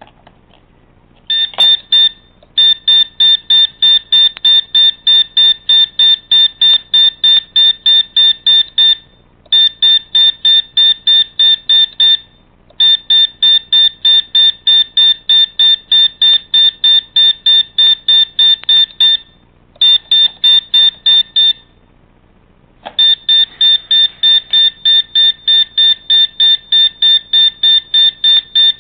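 Electronic buzzer on a 125 kHz RFID prototype board beeping rapidly, a high single-pitched beep about three times a second, in runs broken by short pauses.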